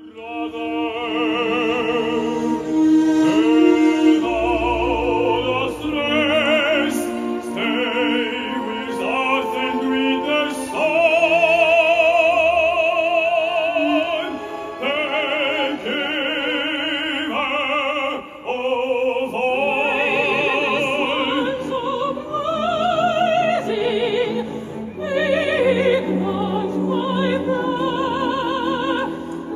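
Operatic trio for soprano, tenor and baritone with orchestra, the voices singing with wide vibrato; the baritone is heard mid-way and the soprano near the end.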